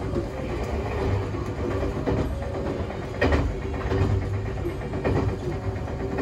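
Interior sound of the Nagano Electric Railway Yukemuri, an ex-Odakyu Romancecar electric train, running along the line: steady wheel and motor noise with a few knocks as the wheels pass over the track, the loudest about three seconds in.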